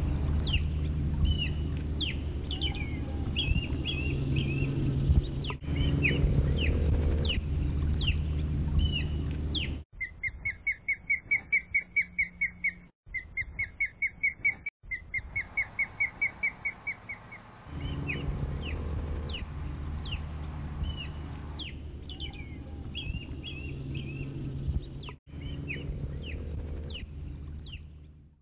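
Osprey calling: quick runs of even, high whistled chirps. Before and after them, scattered sharp chirps sound over a low rumble.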